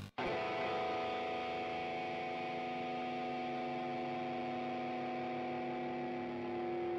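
Drone music: after a short gap, a held chord of several steady tones begins and sustains without rhythm, one lower tone growing louder near the end.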